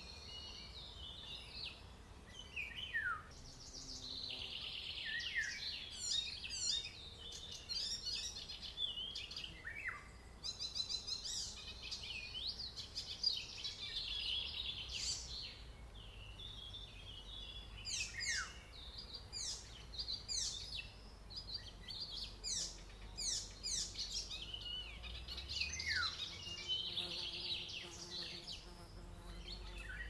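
Several songbirds singing at once, a busy mix of chirps, trills and whistled phrases, with a sharp downward-sliding note now and then.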